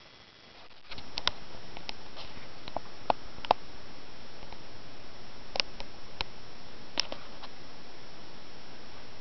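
Scattered single sharp clicks, about a dozen at irregular intervals, over a steady hiss that comes in about a second in, from an electromechanical pinball machine, a 1971 Gottlieb Sheriff.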